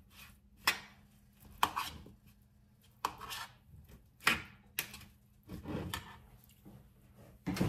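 Kitchen handling noises: a few sharp knocks and clatters of items being picked up and set down, with rustling and scraping in between.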